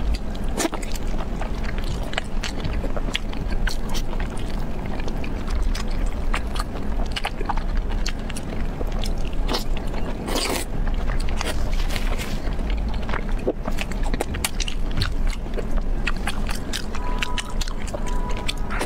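A person biting and chewing braised beef hoof close to the microphone: a steady run of wet mouth clicks and smacks, with one louder bite about ten seconds in.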